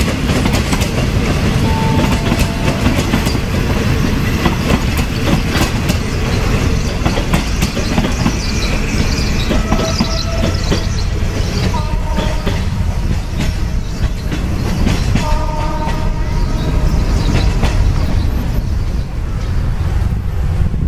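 Train of passenger coaches rolling away over the track: a steady low rumble with wheels clicking over rail joints and several brief wheel squeals. The clicking thins out over the second half as the train draws off.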